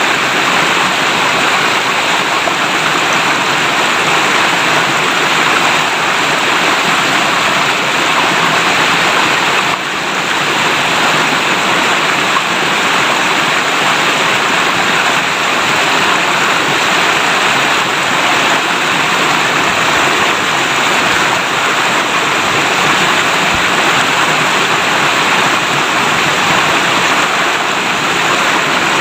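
River water babbling and flowing steadily in a loud, even rush.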